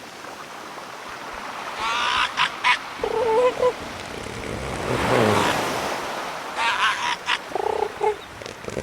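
Animal calls: short honking calls in small groups, alternating with higher, many-toned calls, with a louder swell of noise in the middle.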